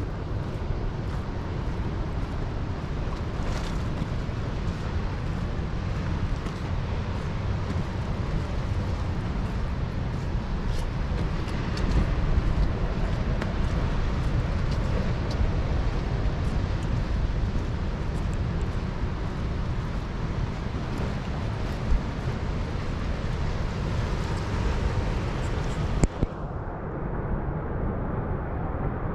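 Wind buffeting the microphone as a steady low rumble, over the wash of ocean surf and moving inlet water. The upper hiss thins out sharply near the end.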